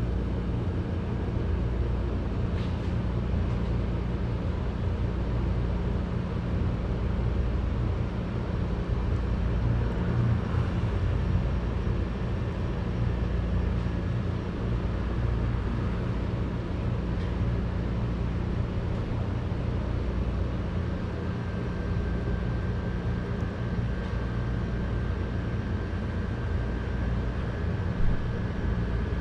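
Steady low mechanical hum with an even background hiss: the drone of a restaurant kitchen's machinery. One short knock near the end.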